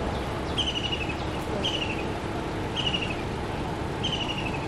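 A bird calling over and over, a short falling trill about once a second, over a steady low vehicle rumble.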